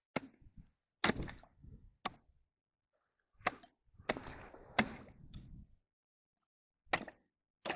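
Ice chisel chopping a fishing hole in thin first ice: a series of sharp strikes a second or two apart, each followed by a short crunching tail.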